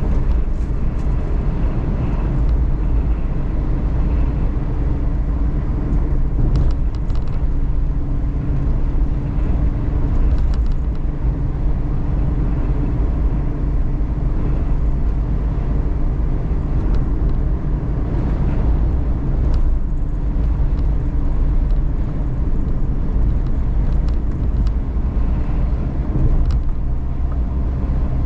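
In-cabin sound of a Suzuki Every DA17V kei van with 5AGS automated manual transmission being driven: a steady low rumble of engine and road, with a few brief light clicks now and then.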